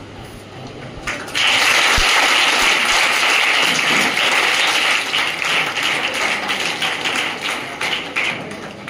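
Audience clapping: applause breaks out about a second in, holds steady for several seconds, and tails off near the end.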